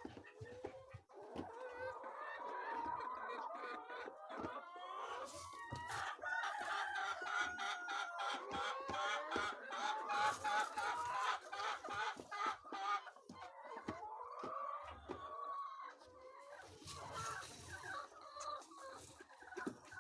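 A flock of laying chickens clucking and calling, many birds overlapping, with scattered short clicks and knocks among them.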